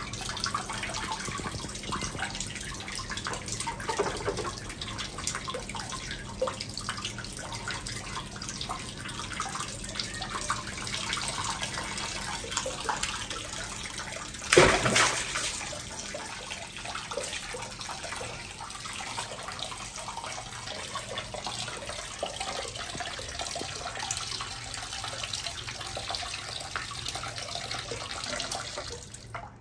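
Tap water running steadily into a plastic basin of water, with small splashes from a baby monkey moving in it. One sudden loud splash about halfway through.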